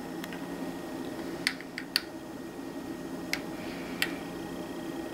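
Metal bar spoon stirring a cocktail in a stemmed martini glass, clinking lightly against the glass about half a dozen times at uneven intervals, over a steady low hum.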